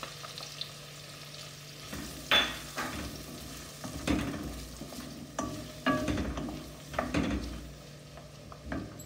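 Chopped onions sizzling in hot oil and butter in a stainless steel wok, being sautéed. A wooden spoon stirs them, scraping and knocking against the pan about ten times from about two seconds in.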